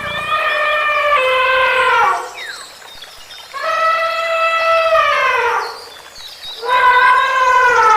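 An animal's long, pitched calls: three of them, each about two seconds long, each falling in pitch at the end.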